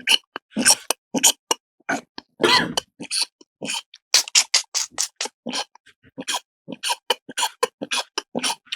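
Mouth-made mimicry of a barber's scissors cutting hair: a quick, uneven run of sharp snips, a few a second.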